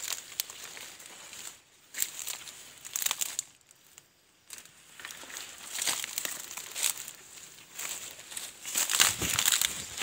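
Dry leaves and undergrowth rustling and crunching underfoot as someone pushes through forest brush, in irregular bursts with two short pauses. The loudest crunches come near the end.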